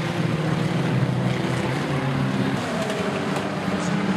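Engines of several banger racing cars running as they lap a short oval, a steady mix of engine drones whose pitches shift as the cars speed up and slow down.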